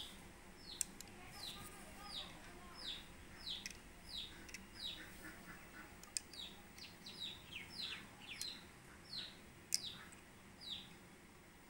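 A bird chirping over and over, short high notes that fall in pitch, roughly one or two a second. A few sharp clicks stand out, the loudest about a second in and near the end.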